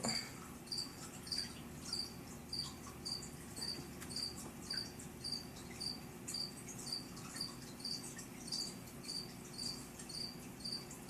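Live crickets chirping steadily and fairly faintly, a short high chirp about twice a second.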